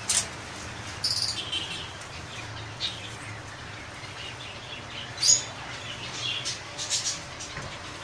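Blue-and-gold macaw making a scatter of short, high chirps and clicks, a handful of times, over a steady low hum.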